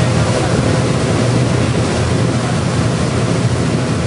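Boat engine running with a steady low drone under the rush of water along the hull, with wind buffeting the microphone.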